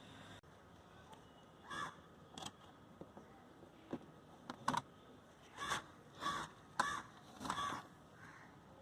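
A crow cawing repeatedly in the background, about seven short caws in irregular succession.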